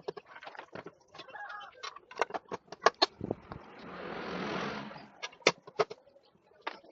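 Irregular clicks and knocks of parts and tools being handled, with a hissing sound that swells and fades over about two seconds in the middle.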